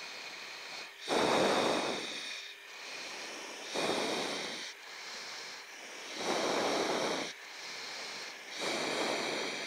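A pilot's breathing picked up by an open intercom microphone in a chase aircraft's cockpit. Four breaths come about two and a half seconds apart, over a steady cockpit hum.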